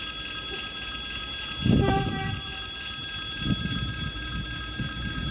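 EP3D electric multiple unit approaching from a distance: a steady low rumble with faint steady high whines, and a brief louder surge of low rumble a little under two seconds in.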